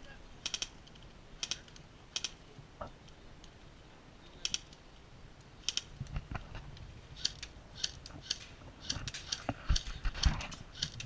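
Airsoft guns firing single shots: sharp, irregular clicks, some in quick pairs, with a few dull thumps near the end.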